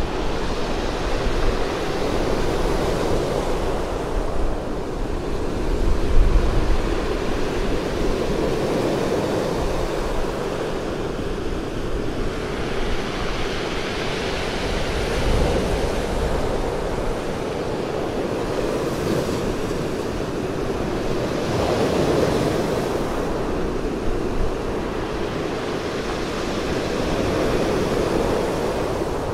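Sea surf breaking and washing over a pebble beach, the noise swelling and ebbing with each wave. Wind buffets the microphone in low gusts, strongest about six seconds in.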